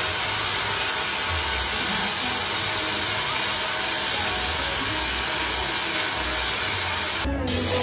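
Tesla coil arc discharging continuously onto a chainmail glove: a steady hissing buzz at an even level, broken briefly near the end.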